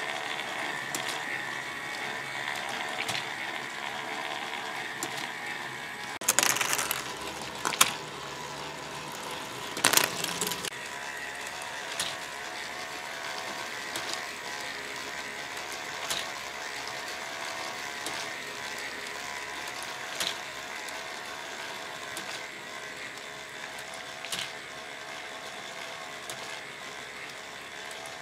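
K'NEX parts-feeder machine running on its single electric motor: plastic gears and linkages whirring steadily, with a click about every two seconds. A louder clatter comes about six seconds in and again near ten seconds.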